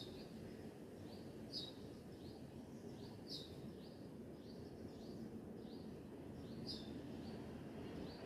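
A bird chirping: a short, high chirp repeated about every second and a half, with softer chirps in between. It sounds faint over a steady low background noise.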